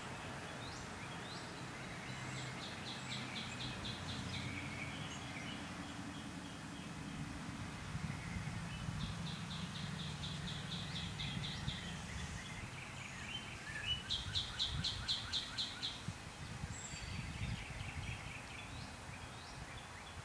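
Outdoor ambience: a songbird sings a repeated song, each a two-second series of short high notes at about four a second. It sings three times, loudest near the end, with fainter chirps between and a low steady rumble underneath.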